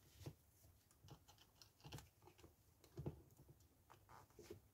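Faint, scattered clicks and light taps of a metal spanner being fitted against a car door-mirror fold mechanism, over near silence.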